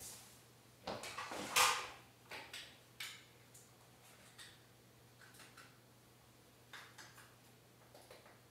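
Objects being rummaged through and handled: a cluster of knocks and rustling about one to two seconds in, then a few faint scattered clicks.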